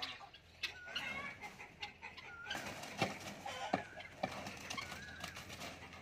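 Caged birds calling over and over, a short wavering call about every second and a half. A few sharp knocks come in the middle, as a wooden pole strikes in and around the enclosure.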